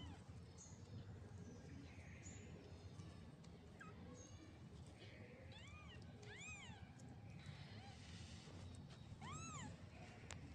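Newborn kittens mewing faintly: a few short, high mews that rise and fall in pitch, mostly in the second half, with the clearest one near the end.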